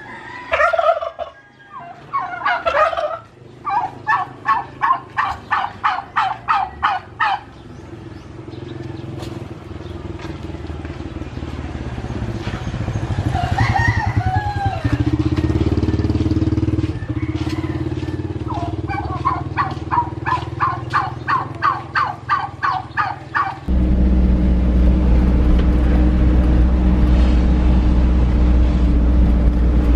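Domestic turkeys calling: a few loud calls, then two long runs of quick, evenly repeated notes, about four a second, with a low engine hum building underneath. About 24 seconds in it cuts to a car's engine running steadily, heard from inside the moving car.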